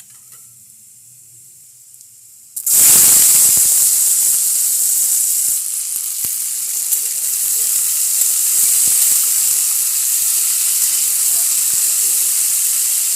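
Finely cut potatoes going into hot oil in a kadhai: about two and a half seconds in, a sudden loud sizzle starts and carries on as a steady hiss of frying.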